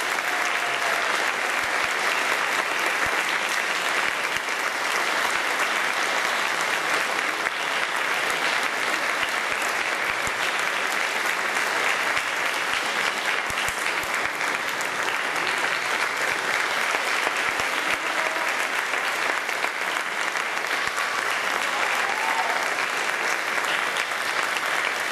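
Audience applauding steadily in a concert hall after a wind band performance.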